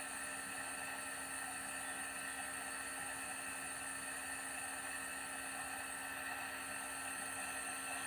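Compressor nebulizer running, a steady motor hum with several fixed tones and no change in pitch or level.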